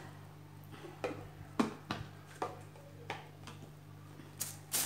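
Plastic airtight storage container with a rubber-sealed press-on lid being handled: a series of light, irregular clicks and knocks as the lid is fitted back onto the clear jar.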